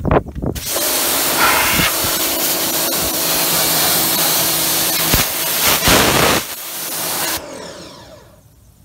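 Pressure washer spraying water: a loud hiss over a steady motor hum, starting about half a second in and cutting off about seven seconds in.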